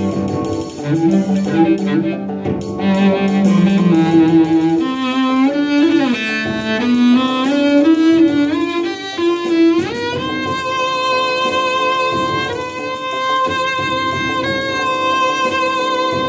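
Bowed cello improvising over a produced beat with a repeating guitar pattern, busy hi-hats, snare and bass. Low notes come first, then a run of quick notes sliding and climbing, then from about ten seconds in a higher note held long.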